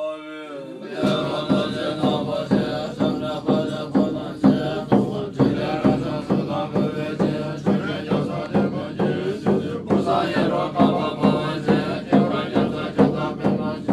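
Buddhist monks chanting prayers together in a low, steady chant over an even percussion beat of about two strokes a second, starting about a second in.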